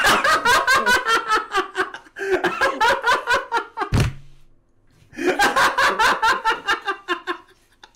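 Two men laughing hard in fits of rapid, breathy pulses. A sharp thump comes about four seconds in, followed by a second or so of quiet before the laughter resumes and then dies away near the end.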